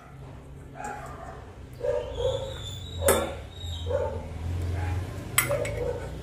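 A dog giving several short yips a second or so apart, with a metal ladle clinking twice against a steel pot.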